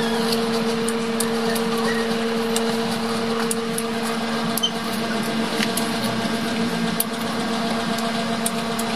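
A steady low machine hum with a faint even hiss, like a motor or fan running, and a few faint clicks from biting and chewing wax apples (tambis).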